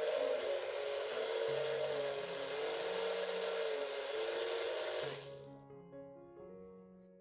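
An electric juicing appliance's motor running under load with a wavering whine, switched off about five seconds in. Background music plays throughout.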